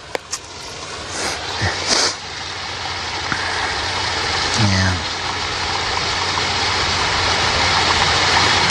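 A steady rushing noise that grows steadily louder.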